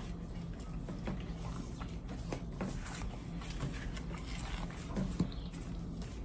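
People eating at a table: chewing and small scattered clicks and taps of utensils, over a steady low hum.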